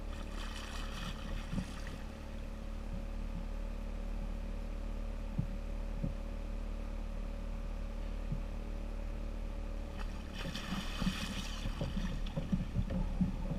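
Water splashing as a hooked tarpon thrashes at the surface beside a kayak, briefly at the start and again for about two seconds near the end, over a steady low rumble. A few light knocks follow near the end.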